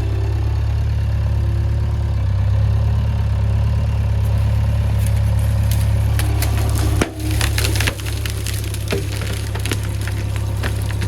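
JCB 3DX backhoe loader's diesel engine running steadily. From about halfway through, sharp cracking and snapping join it as the bucket works the ground, with a brief drop in the engine sound at about seven seconds.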